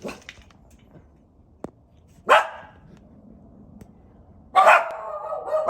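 A dog barking: one short bark about two seconds in, then a longer, louder bark near the end. A faint click comes just before the first bark.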